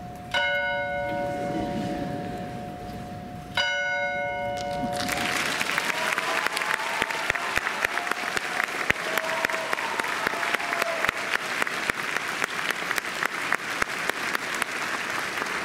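A large bell in a floor stand struck twice, about three seconds apart, each stroke ringing out and slowly fading. About five seconds in, applause breaks out and continues.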